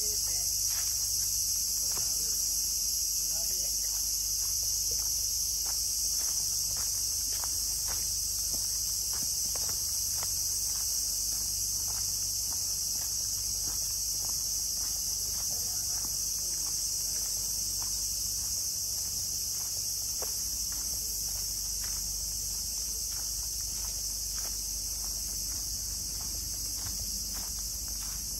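Steady, high-pitched chorus of insects, with a run of faint irregular footsteps under it.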